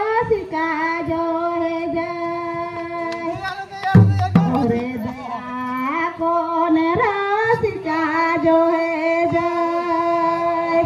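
Folk singing in a high voice, long held notes that slide up into each phrase, over the strokes of mandar barrel drums.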